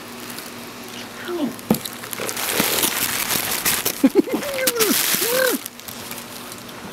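Plastic bubble wrap crinkling and rustling as it is handled and pushed about inside a cardboard box, running for several seconds before stopping about a second before the end. Near the end a few short vocal sounds rise and fall in pitch over the crinkling.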